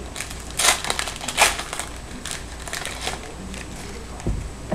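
Trading-card pack wrapper crinkling in a few short rustles as it is peeled off and the cards are pulled out, with a soft thump near the end.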